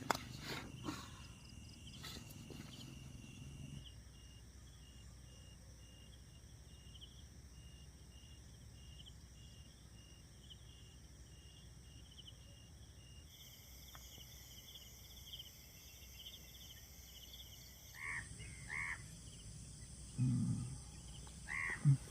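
Night insect chorus: crickets and other insects keep up a steady, high-pitched chirping with a fast pulsing trill, and the mix changes abruptly a few times. Near the end, a few short, louder animal calls stand out.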